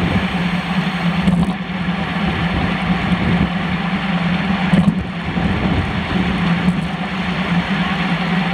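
Steady wind and road noise on a handlebar-mounted camera's microphone while riding a road bike at race speed, a constant rushing with a low hum underneath.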